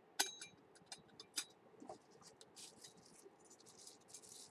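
Ceramic teapot being handled, its lid or strainer clinking: one sharp, briefly ringing clink, then a few lighter knocks. This is followed by soft scratchy rustling near the end.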